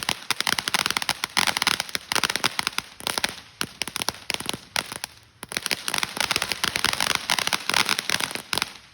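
Ground fountain firework spraying with dense, rapid crackling, easing briefly twice and cutting off suddenly near the end as the fountain burns out.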